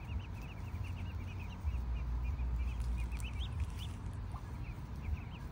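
A brood of ducklings peeping nonstop, many short high peeps overlapping in quick succession. A low rumble runs underneath, stronger from about two seconds in.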